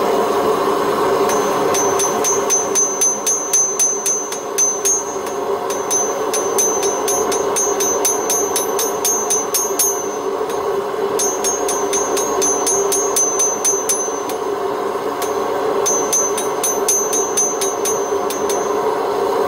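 Hammer blows ringing on hot steel rod over an unanchored anvil, about four a second in runs with two short pauses, over the steady roar of a gas forge burner.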